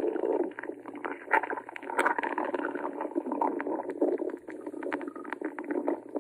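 A hungry stomach growling: a continuous, irregular gurgling rumble broken by many small pops and squelches, the sign of an empty stomach.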